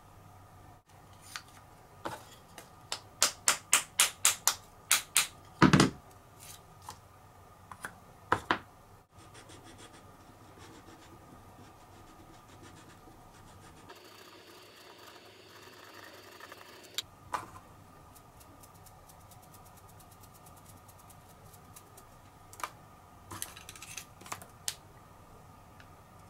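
Sharp handling clicks and taps of a stainless-steel pipe and its black end cap being worked by hand, a quick run of about ten taps about two seconds in, then a few scattered clicks later.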